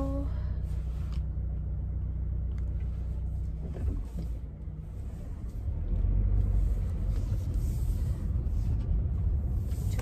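Car engine running, heard from inside the cabin: a steady low idle hum, which turns into a heavier low rumble about six seconds in as the car moves off.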